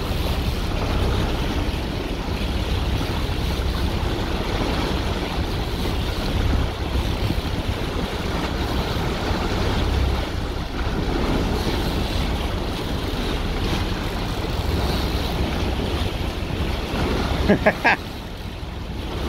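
Wind buffeting the microphone over the wash of the sea around a boat: a steady rushing noise with a low rumble. A few short, sharp clicks sound near the end.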